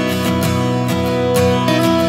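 Background music: steady strummed acoustic guitar chords.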